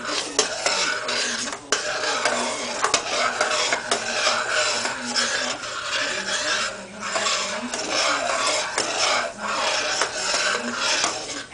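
Small spoon stirring a liquid in a stainless steel saucepan, scraping steadily around the bottom and sides with light clinks against the metal.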